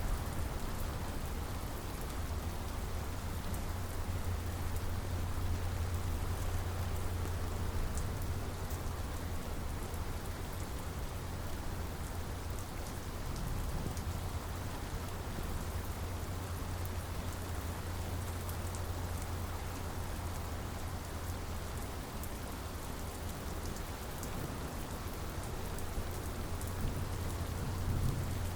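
Steady heavy rain falling on surfaces, a dense hiss with scattered drops ticking in it, over a constant low rumble.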